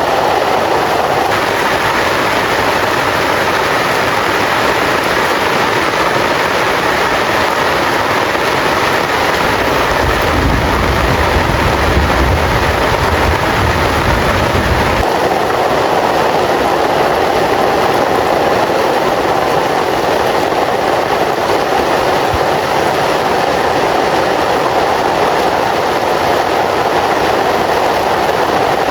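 Heavy rain falling in a steady, dense downpour. A low rumble joins it for about five seconds near the middle.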